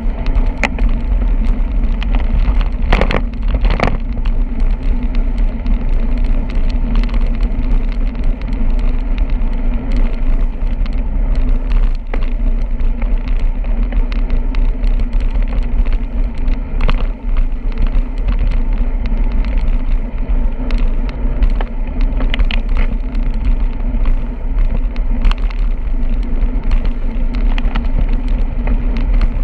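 Steady wind rumble and road noise from riding a bicycle, with scattered clicks and rattles over the road surface and a short burst of clatter about three seconds in.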